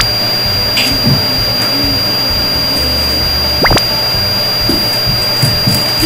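Vacuum cleaner running steadily with a constant high whine, over background music. A quick falling swoosh sound effect comes about three and a half seconds in.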